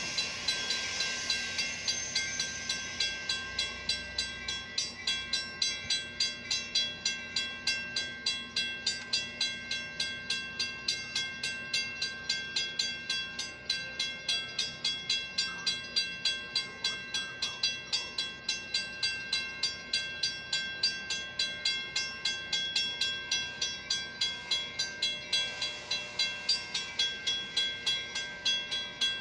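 Railroad grade-crossing warning bell ringing in rapid, even strikes. A hiss fades out in the first couple of seconds.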